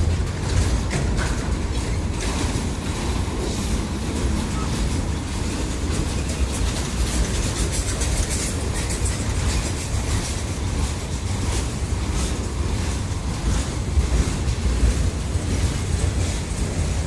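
Freight train cars rolling past, a steady rumble of wheels on the rails with a running clatter of clicks.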